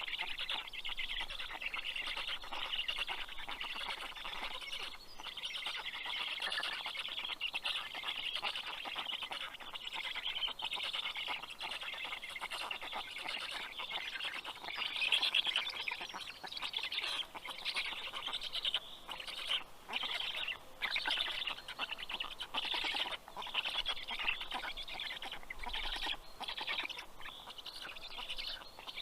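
Black stork chicks in the nest calling continuously, a dense rapid chatter of short calls that goes on without a break.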